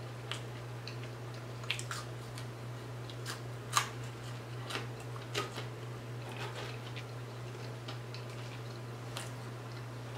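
Quiet eating sounds: scattered small clicks and soft crunches from chewing fried fish and fries and from fingers handling the food and a small plastic sauce cup, over a steady low hum.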